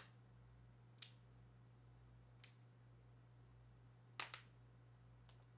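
Small sharp clicks and taps, about six of them with a close pair about four seconds in, as the screen assembly of a Nokia Lumia 920 is handled and set into its replacement shell, over a faint steady low hum.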